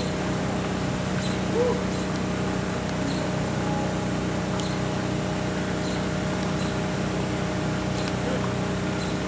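A small motor running with a steady hum made of several even tones, with faint regular ticks over it.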